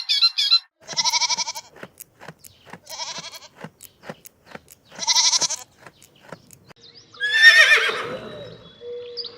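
Goat bleating three times, about two seconds apart, each call wavering in pitch, with quick sharp clicks between the bleats. About seven seconds in comes a louder call that glides up and down in pitch.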